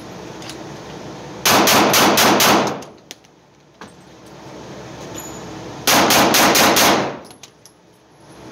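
Two rapid strings of five shots from an Arex Delta Gen 2 L 9mm pistol, about four shots a second, the strings about four seconds apart. Each shot rings on in the indoor range.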